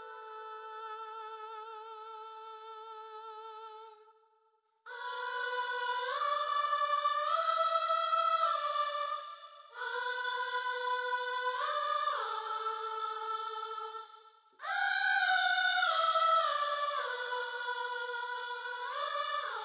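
Background music of high voices singing slow, sustained chords, in phrases of about five seconds with short breaks between them.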